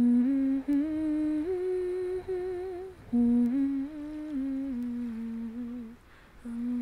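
A woman humming a slow tune without words, holding notes that step up and down, in phrases with short breaks about three and six seconds in.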